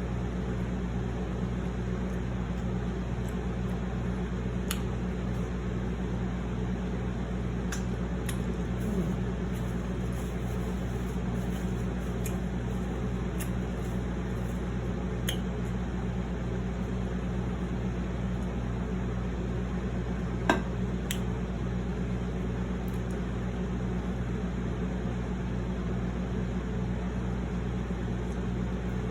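A steady mechanical hum, like a fan or air conditioner, runs under quiet eating sounds: soft squishes and a few faint clicks as food is handled. One sharper click or tap comes about twenty seconds in.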